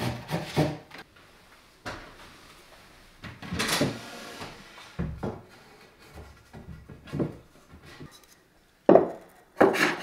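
Lengths of planed timber handled and set in place on top of wardrobe frames: a series of wooden knocks, clunks and short scrapes, the sharpest about nine seconds in.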